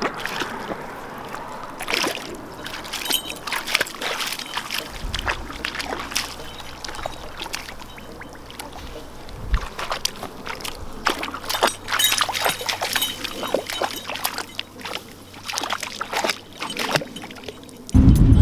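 A Vizsla wading in shallow lake water, with irregular sloshing and splashing as her legs move. Near the end it cuts abruptly to louder low road noise inside a moving car.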